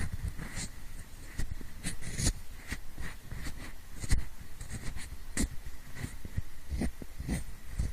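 Pencil scratching and rubbing close to the microphone in the style of ear-cleaning ASMR, heard in both ears at once: short irregular scrapes, about two a second.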